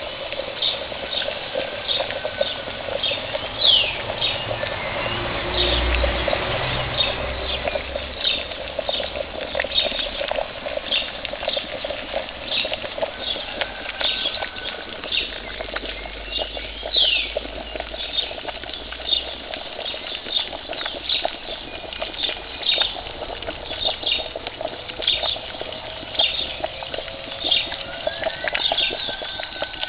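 Quicklime (calcium oxide) slaking in a plastic bucket of water, the mix boiling from the heat of the reaction: a continuous bubbling with rapid sharp pops and crackles, swelling briefly about five seconds in.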